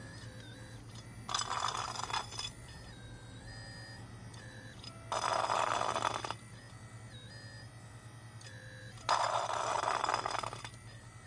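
Bucket of a scale RC hydraulic excavator scraping across a cement floor three times, each pass lasting about a second, over the steady whine and hum of the model's hydraulic pump.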